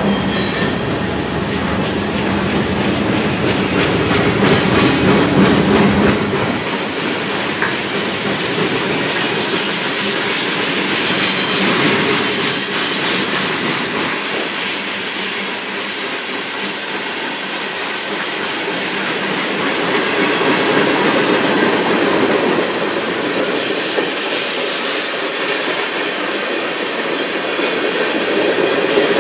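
A freight train's cars rolling past close by: steel wheels clattering over the rail joints in a steady run, with some high wheel squeal.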